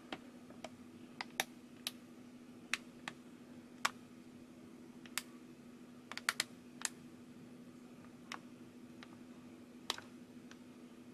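Plastic candy-kit packet crinkling and clicking in the fingers as it is handled: sharp, irregular little clicks, about one or two a second, over a steady low hum.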